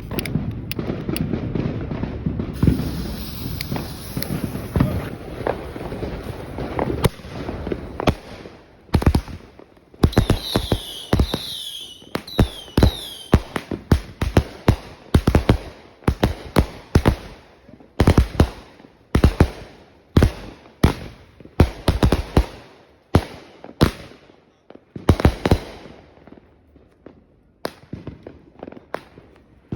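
Consumer fireworks going off. Dense crackling for the first several seconds gives way to a run of sharp bangs about one a second, some with falling whistles, and the bangs thin out near the end.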